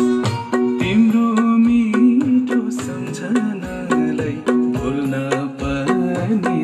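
Music of a newly recorded Nepali song: a steady drum beat under a held, wavering melody line.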